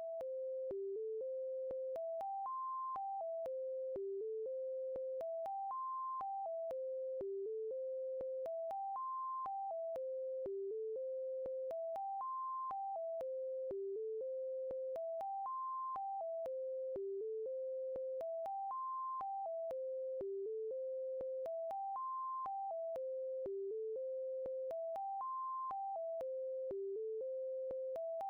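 Simple electronic tune played as one line of plain, beep-like synthesizer tones. A short phrase climbs stepwise and falls back, repeating over and over about every three seconds, with a faint click at each note change.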